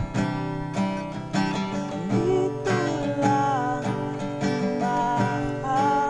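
Background music: strummed acoustic guitar, with a melody line that slides between notes from about two seconds in.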